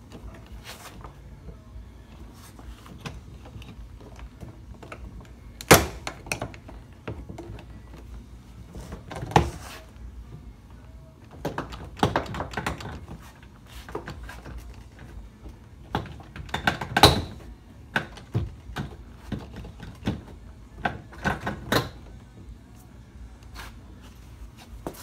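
Plastic retaining clips of a 2014 Chevrolet Corvette door panel popping and knocking as the panel is pried away from the door with a plastic panel popper. An irregular string of sharp clicks and knocks, the loudest about six and seventeen seconds in.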